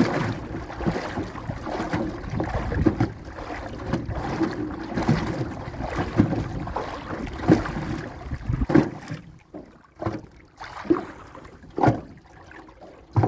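Knocks and clunks on a small boat as a prawn trap is hauled in and handled, over a steady rush that drops away about nine seconds in, after which a handful of separate knocks stand out.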